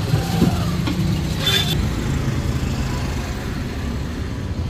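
Street traffic noise: a steady low rumble of passing road vehicles, with a brief sharp higher-pitched sound about a second and a half in.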